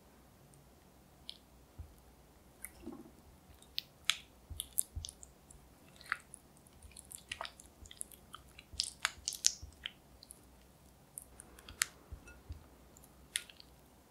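Silicone spatula pressing and smearing softened butter in a glass bowl: irregular small sticky clicks and squelches, busiest in the middle, as the butter is worked smooth.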